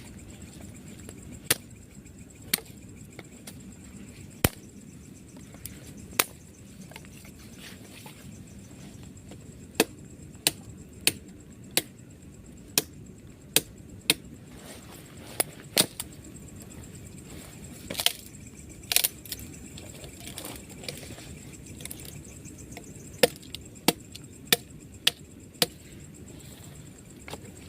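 Firewood being chopped with a blade: a series of sharp, separate chops, irregularly spaced and coming in runs of about one or two a second, over a steady background hiss.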